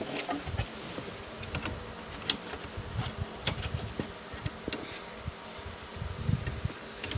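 A steady low electrical buzz, with scattered light clicks and taps over it.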